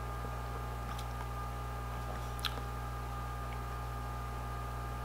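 Steady low hum over quiet room tone, with a faint click about a second in and a brief tick about two and a half seconds in.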